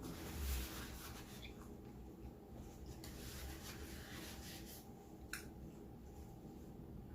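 Faint eating sounds: quiet chewing and soft rustling of food and wrapper, with a single light click about five seconds in.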